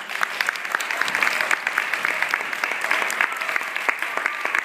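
Audience applauding: dense, steady hand-clapping, with a few faint voices mixed in near the end.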